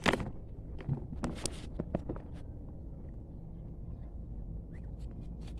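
A few scattered metallic clicks and knocks of hand tools on the engine bay as a bolted bracket is worked loose, over a steady low background rumble.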